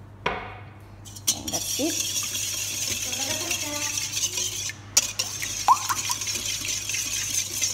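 Wire balloon whisk beating a thin milk, egg and cream mixture in a stainless steel bowl: a couple of knocks of the whisk on the bowl, then steady fast whisking from a little over a second in.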